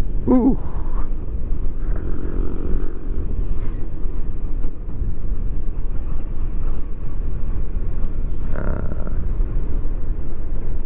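Steady wind rumble on the microphone and road noise from a Yamaha X-Max scooter riding downhill on a rough mountain road, with the scooter's engine running underneath.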